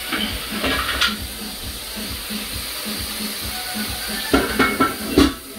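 Wooden spatula scraping and knocking against a frying pan as chopped vegetables fry in oil with a steady sizzle; a cluster of louder knocks and scrapes comes near the end.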